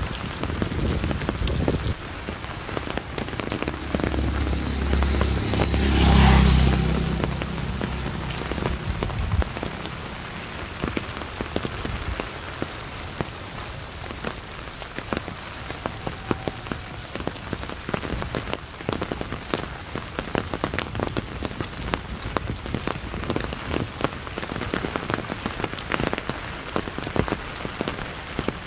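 Steady rain falling, with many separate drop hits close by. Three to nine seconds in, a loud swelling rush with a deep rumble rises, peaks and fades away; it is the loudest thing here.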